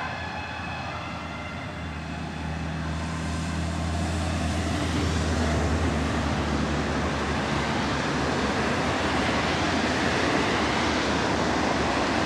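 An ambulance siren fading into the distance during the first few seconds. After that, traffic noise from a line of cars driving toward the listener grows steadily louder, an even rush with a low engine hum.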